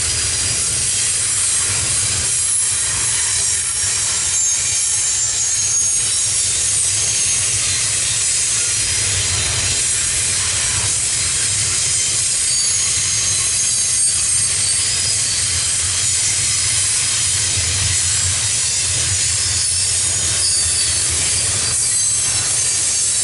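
Double-stack intermodal freight train rolling steadily past: an unbroken rumble and hiss of steel wheels on the rails, with thin high wheel squeal at times.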